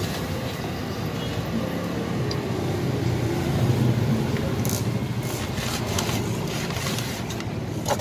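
Steady low rumble of street traffic that swells as a vehicle passes about halfway through. Then a few short clicks and scrapes come from metal tongs and a paper kebab sleeve being handled.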